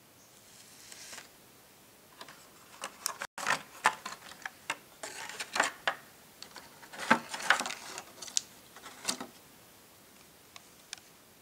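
Crinkling and clicking of a torn plastic blister pack and its cardboard card as a Hot Wheels die-cast toy car is taken out and handled: a dense run of sharp crackles and taps for several seconds, thinning to a few scattered clicks near the end.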